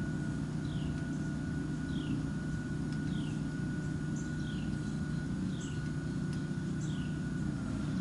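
A steady low engine-like hum runs throughout. Over it, a bird repeats a short falling whistle about once a second.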